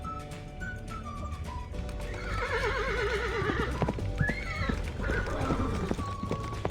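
A horse whinnying: a long quavering neigh about two seconds in, then a shorter one, with hooves clip-clopping, over light background music.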